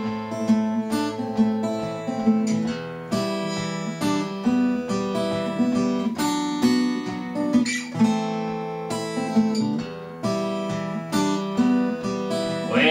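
Solo acoustic guitar playing an instrumental passage, a steady run of plucked notes and strummed chords ringing out. A man's singing voice comes in right at the end.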